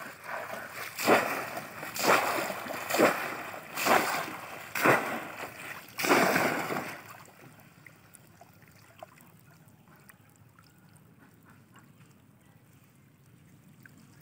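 A bamboo plunge-basket fish trap slapped down into shallow water again and again, a splash about once a second. After about seven seconds the splashing stops, leaving only faint sloshing of water.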